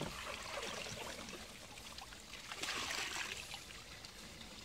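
Water pouring and trickling from a tipped plastic storage tote into a shallow muddy pond, with a louder splashing stretch about two and a half seconds in.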